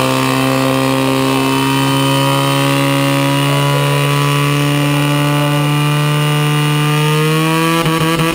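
Portable fire pump's engine running flat out at a steady high pitch, driving water through the attack hoses. Near the end its pitch dips and wavers.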